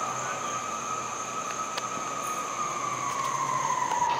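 A steady high whine over a background hiss, sliding slowly down in pitch during the last second or so.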